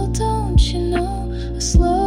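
Slow chill ambient music: a soft kick drum with a falling boom about every second and a quarter, under sustained bass and pads and a gliding melody line.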